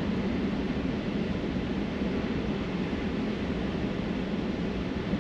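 Steady tyre and road noise heard inside the cabin of a Tesla electric car on the move.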